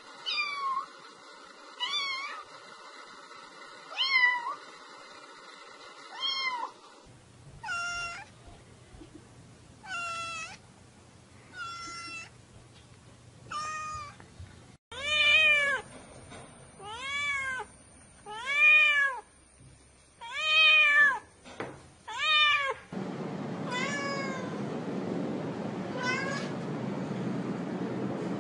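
Black domestic cat meowing over and over, one short meow every second or two, each rising then falling in pitch; the meows come faster and louder in the middle. The background changes abruptly a few times, with a steady hum early on and a hiss near the end.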